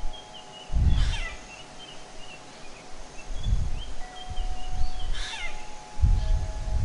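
An animal crying twice, each cry falling steeply in pitch, about a second in and again near five seconds. Faint high chirps run through it, and there are a few dull low thumps.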